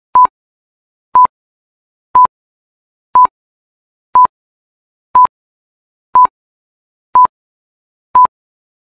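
Countdown timer beeping: a short, single-pitched electronic beep once a second, nine times, with silence between beeps.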